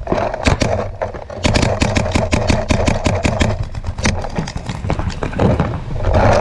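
Paintball markers firing in rapid strings of shots, about ten a second, thickest in the first half, over a steady low rumble.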